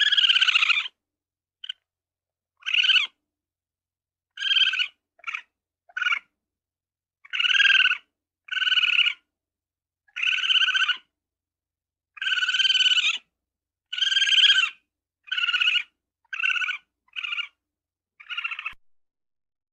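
A ferret giving a string of about fifteen short, high-pitched calls, each lasting well under a second, with silent gaps between them.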